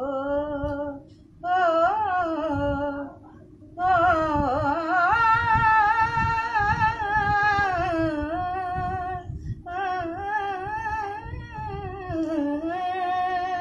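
An elderly woman singing an Indian folk song unaccompanied, drawing out long, wavering held notes in four phrases with short pauses between them.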